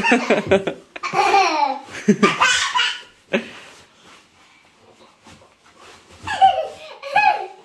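Hearty laughter in two bursts: about three seconds of laughing, a quiet pause, then more laughter near the end.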